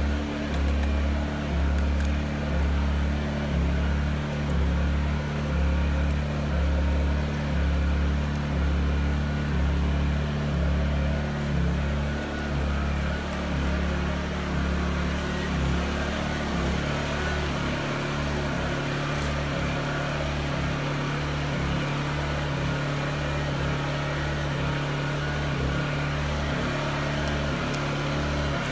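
A motor or engine running steadily with a low hum, throbbing about once a second, the throb evening out about halfway through.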